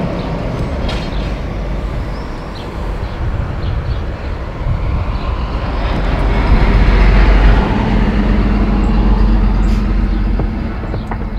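Rumble of a passing vehicle, growing louder toward the middle and easing off near the end, with a steady low hum in its later part.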